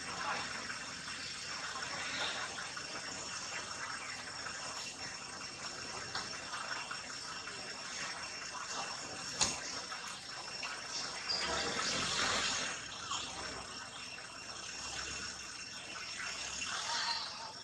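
Steady hiss of outdoor background noise with faint high steady tones. A sharp click comes about nine and a half seconds in, and the noise swells louder around twelve seconds.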